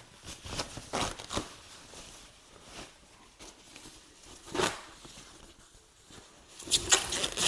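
Packaging being unwrapped by hand: scattered rustles, crinkles and tearing, with a louder burst of rustling near the end.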